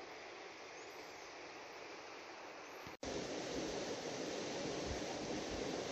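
Wind rushing over the microphone outdoors as a steady noise, jumping louder at a cut about three seconds in, with a few low buffeting thumps near the end.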